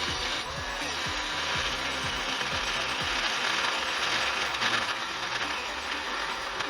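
Power tool working a steel block: a steady, harsh hiss with a mechanical rattle underneath.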